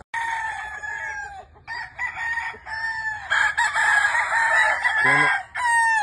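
Gamefowl roosters crowing, long calls one after another and overlapping, with a short break about a second and a half in.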